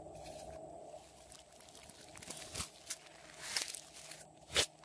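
Hands pressing and kneading glossy slime: scattered small sticky clicks and crackles, with a sharper pop about four and a half seconds in.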